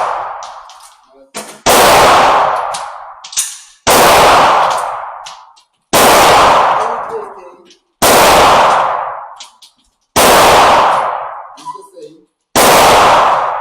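9mm handgun fired six times, about one shot every two seconds. Each loud shot is followed by a long echo dying away, and there are faint clinks between the shots.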